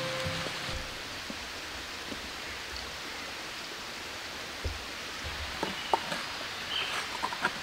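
Steady hissing outdoor background, with the last of some music fading out in the first second. In the second half come a few low thuds, then sharp clacks and knocks of flat stones being handled and set down on a dry-stone wall.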